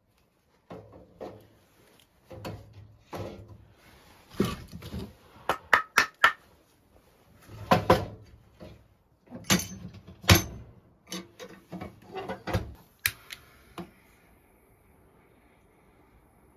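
Irregular knocks and clatters of hard objects being handled and set down in a small room, about a dozen sharp strikes bunched in uneven groups, stopping a couple of seconds before the end.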